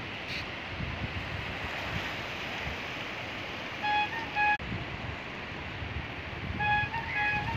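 Steady rush of wind and sea surf. Short high-pitched beeps cut through it: a pair about four seconds in and a few more near the end.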